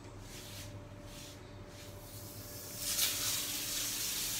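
Butter and olive oil sizzling in a hot frying pan. The sizzle starts about three seconds in, as the butter hits the oil, and then keeps going steadily.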